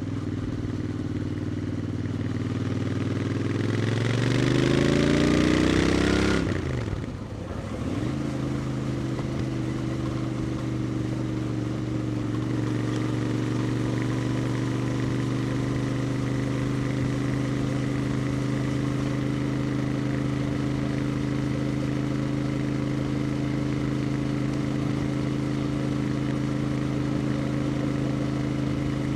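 Royal Enfield Interceptor 650's parallel-twin engine and exhaust accelerating, rising in pitch for the first six seconds or so. The sound drops away sharply about seven seconds in, then the bike settles into a steady cruise at constant revs.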